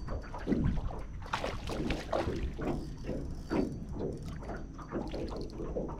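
Water splashing and knocks around a small fishing boat, in irregular short bursts, over a steady low rumble.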